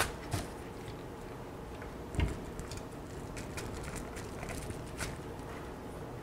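A few faint, scattered clicks and taps of a small screwdriver and wire being worked into a screw terminal block on a circuit board, the sharpest about two seconds in.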